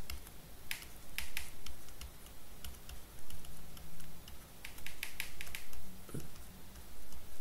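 Stylus tapping on a graphics tablet during handwriting: short, sharp clicks in a few clusters, with a quieter gap in the middle.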